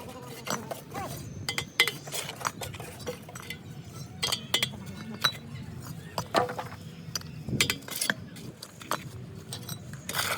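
Irregular sharp metallic clinks and taps, a mason's steel trowel striking bricks, with a few louder knocks among them.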